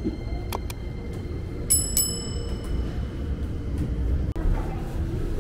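A small bell rung twice in quick succession, bright ringing tones that fade within about half a second, with a few fainter ringing clicks before it, over a steady low street rumble.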